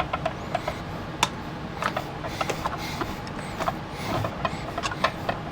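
Irregular light clicks and taps, several a second, from a hot glue gun and plastic bottle parts being handled during gluing, over a steady low hum.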